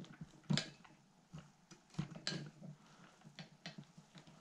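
A handful of light, scattered clicks and taps of metal Edelbrock Performer carburetor parts being handled and fitted together on a workbench.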